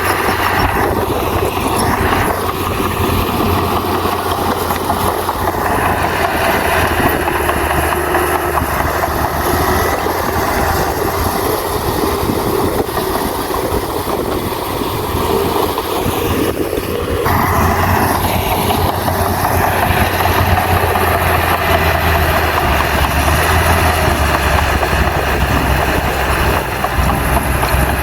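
Heavy diesel engine of a bulldozer running steadily while working, its low engine note growing louder about seventeen seconds in.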